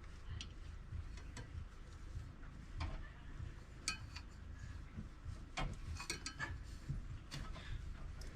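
Faint, irregular metallic clicks and taps of hand tools being worked on the engine, a few sharper knocks around four and six seconds in, over a low steady hum.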